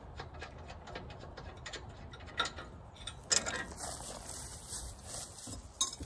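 Light metallic clicks and clinks from handling a just-removed securing bolt and parts on a wood chipper's housing, with two sharper clicks, about three seconds in and near the end.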